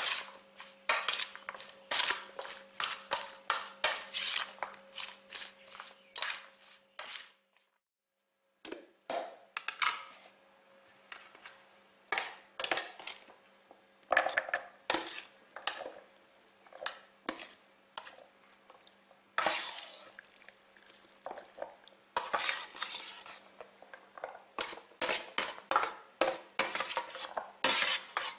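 Metal spoon clinking and scraping against a metal tray while stirring and scooping out cut cucumber and carrot pickle, in quick irregular strokes. There is a short silent break about a quarter of the way in.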